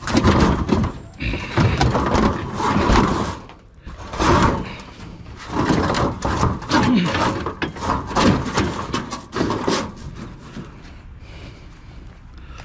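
Scrap items being handled and moved, with clattering and banging in irregular bursts for about ten seconds, then quieter.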